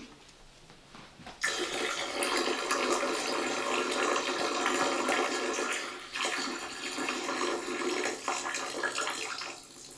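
Soda being poured into a can: a steady pour of liquid that starts about a second and a half in, dips briefly twice, and fades out near the end.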